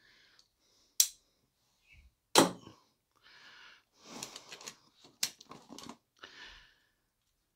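Tools being handled in a soft-sided tool bag: a few sharp clicks and knocks, with rustling and light clatter as a pocket of the bag is rummaged and a hand-held cable stapler is pulled out.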